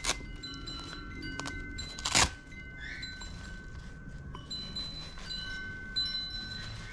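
Wind chimes ringing, several overlapping clear tones that start at different moments and ring on. A short, loud scratchy rasp cuts across them about two seconds in.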